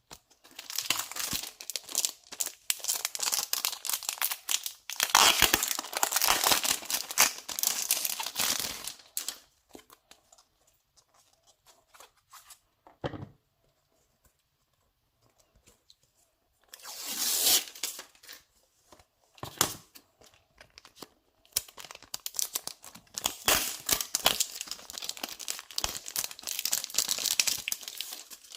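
Packaging on a boxed Blu-ray set being torn open and crinkled by hand, in three bouts of ripping and rustling with quieter pauses between them.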